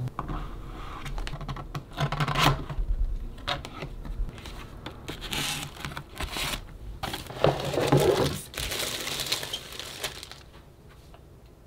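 Handling noise from unpacking: a cardboard box and its foam liner tapped and shifted, then a plastic wrapper crinkling around a hard plastic case. Many short taps and scrapes, with the rustling busiest from about seven to nine and a half seconds in, fading near the end.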